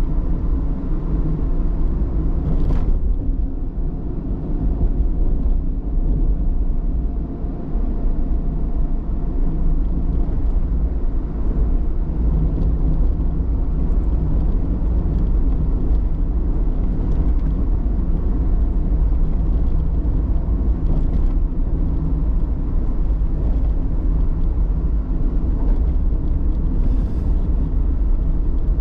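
Car driving on the road: a steady low rumble of tyres and engine, with a brief click about three seconds in and another near the end.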